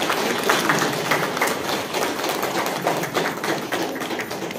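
Audience clapping: many hands applauding together, thinning out near the end.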